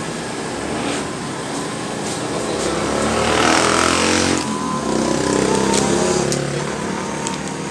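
Motorcycle engines on the road: one goes by loudest about three to four seconds in, and another pulls up close and runs just after.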